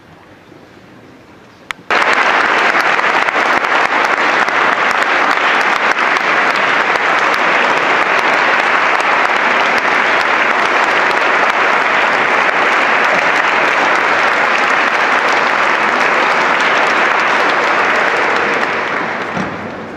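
Audience applauding: the clapping starts abruptly about two seconds in, holds steady, and dies away near the end.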